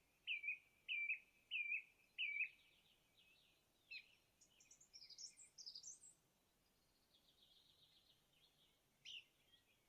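A bird singing outdoors: a string of four short, evenly spaced chirps, then quicker higher notes a few seconds in, a faint trill, and more chirps near the end.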